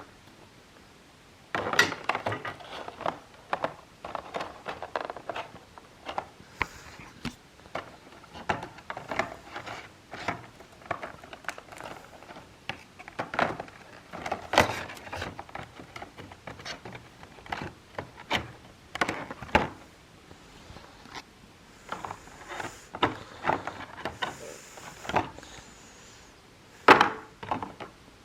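Irregular small knocks, clicks and rustles from handling a diecast model airliner and its box packaging.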